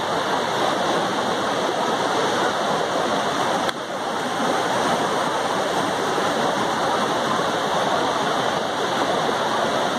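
Steady rush of a stream flowing over a rocky bed, with a brief drop in level a little before four seconds in.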